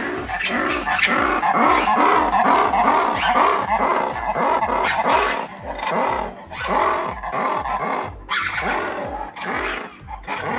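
Black-and-white ruffed lemurs giving their loud call: a raucous chorus of rapid barks and roars, with a short lull about eight seconds in before it picks up again. It is a territorial call, taken by the onlookers as a warning to stay back.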